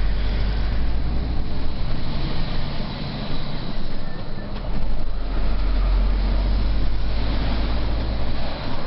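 MAN TGA 18.480 truck's straight-six diesel running under way, heard from inside the cab as a deep, steady drone with road and cab noise over it. The low drone eases off about three seconds in and picks up again a second and a half later.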